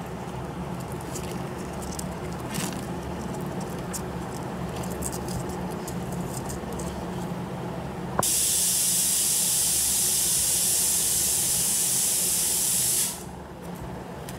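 Faint clicks of wire and pearl beads being handled over a steady low hum. About eight seconds in a loud, even hiss starts suddenly and cuts off about five seconds later.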